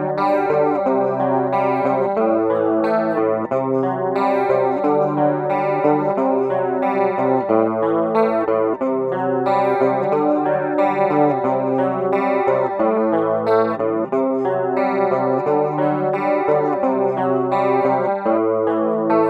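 Electric guitar playing picked chords and notes through a homemade STM32 microcontroller effects pedal set to chorus, with new notes struck about once a second.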